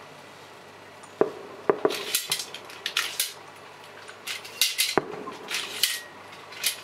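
Aerial firework shells bursting: about a second in, a run of sharp bangs begins, five or so spread over the next few seconds, mixed with spells of high crackling from crackle stars.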